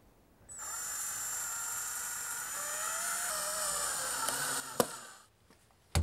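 Cordless drill/driver driving a long wood screw through a deadbolt strike plate into the door jamb, its motor whining steadily for about four and a half seconds, the pitch shifting a little partway through, then stopping.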